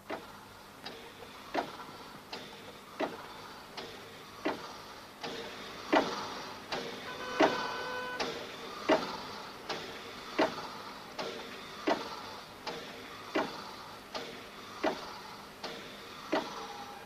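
A regular series of sharp taps, about three every two seconds, keeping an even pace throughout, with a few short steady tones sounding about seven to eight seconds in.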